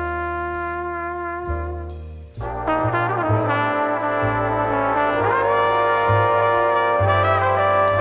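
Background music played by brass instruments: sustained chords over a low bass note, with a brief dip about two seconds in before a louder, fuller passage.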